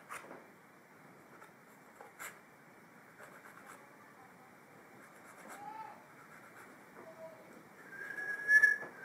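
A person whistling idly: a couple of short, faint notes, then a louder, higher note held for about a second near the end.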